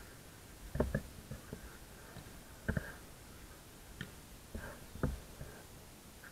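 Scattered dull thumps of a football being kicked during play, about six at irregular intervals, the strongest about a second in and near three seconds in.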